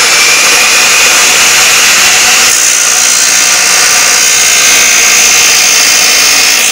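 Makita abrasive cut-off saw running with a steady motor whine. About two and a half seconds in, the wheel bites into metal and a harsher grinding sound joins the motor.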